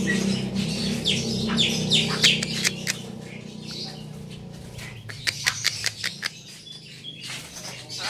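Black-winged starlings (jalak putih) calling: repeated short, sharp chirps and squawks, in clusters about a second in and again after five seconds, over a low steady hum that fades around halfway.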